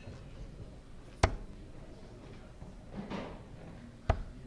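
Two steel-tip darts striking a Nodor Supamatch bristle dartboard, one sharp thud about a second in and another about three seconds later.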